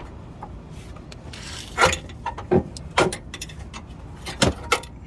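Hammer knocking on metal suspension parts, about five sharp, irregular knocks, the loudest about two seconds in, each ringing briefly. A short scrape comes just before the first knock.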